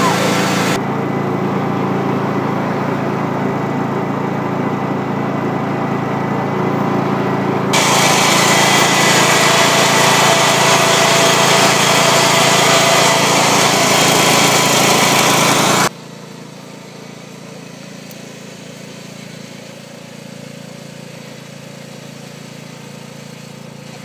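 John Deere lawn tractor engine running steadily, recorded up close while riding on lake ice. About 8 seconds in a loud hiss joins the engine. About 16 seconds in the sound cuts to the same engine much quieter and more distant.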